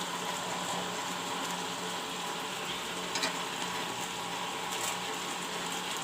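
Chicken and masala frying in mustard oil in a pan, a steady sizzle, with a steady low hum underneath and a faint tick about three seconds in.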